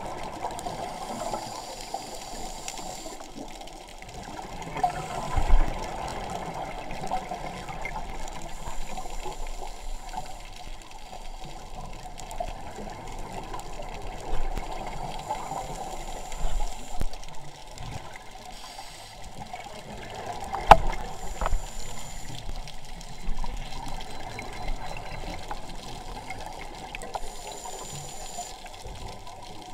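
Muffled underwater noise heard through a camera's waterproof housing: a steady dull wash of water, with a few sharp knocks, the loudest about 5 and 21 seconds in.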